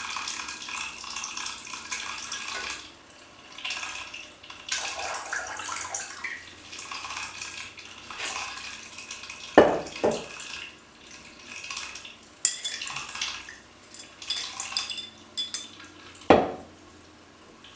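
Laboratory glassware being handled: liquid pouring and trickling between glass vessels, with occasional glass clinks and knocks. The sharpest knocks come about ten seconds in and near the end.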